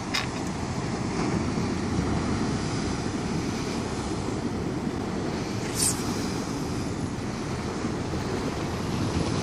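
Wind buffeting the microphone over the steady wash of surf breaking along the pier, with one brief sharp click about six seconds in.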